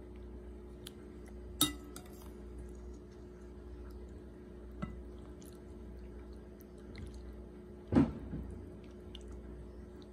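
Metal ladle scooping in a bowl of sweet soup: two sharp clinks against the bowl, about one and a half seconds in and again about eight seconds in, with fainter small ticks between. A steady low hum runs underneath.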